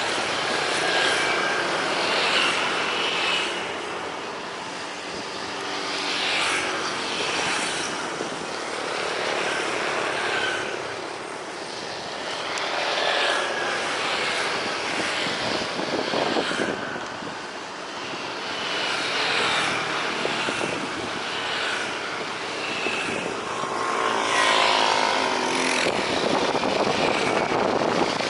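Propeller aircraft engine running, its sound swelling and fading every few seconds.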